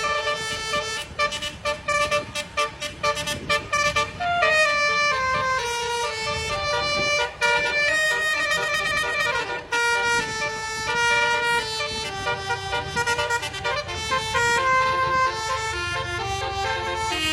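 Basuri multi-tone telolet horn playing a tune, a quick run of short repeated notes and then longer notes stepping up and down in pitch, over a low rumble.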